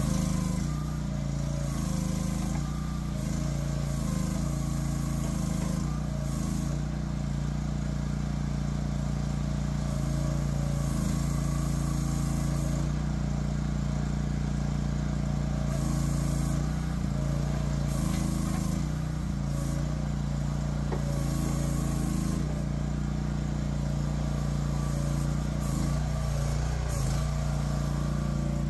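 Briggs & Stratton 12.5 HP gas engine of a mini excavator running steadily while the boom and bucket are worked, its pitch shifting slightly now and then as the hydraulics take load.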